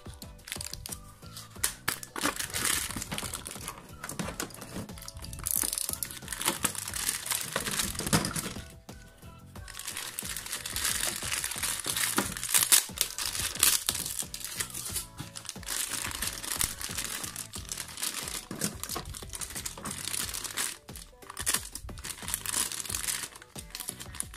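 Clear plastic bags crinkling as hands open them and work out Beyblade parts, in irregular crackling bursts with a short lull partway through. Background music plays underneath.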